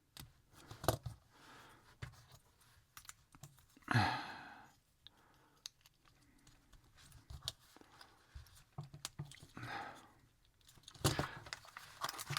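Small plastic model-kit parts being handled and pressed together: scattered light clicks and taps, with a louder brief rustle-like noise about four seconds in.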